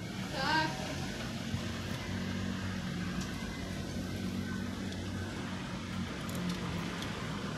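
Steady low mechanical hum over a background rumble, with one brief gliding squeak about half a second in.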